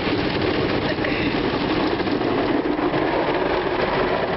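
An automatic car wash heard from inside the car: a steady, dense rushing of the wash's water and machinery against the car body.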